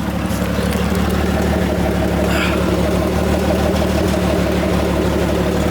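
Jeep Cherokee XJ engine running steadily at a low, even pitch through its old exhaust, which the owner wants replaced because it backfires.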